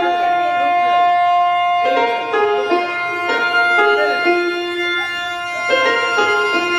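Instrumental music: a keyboard melody moving in short stepped notes over long held tones, with no drum beat.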